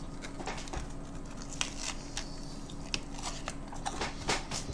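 Scattered faint clicks and crackles of something being handled by hand, a few sharper than the rest, over a faint steady hum.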